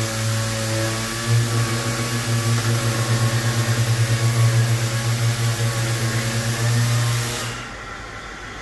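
Steady low mechanical hum with a few overtones, pulsing slightly, that drops away about a second before the end.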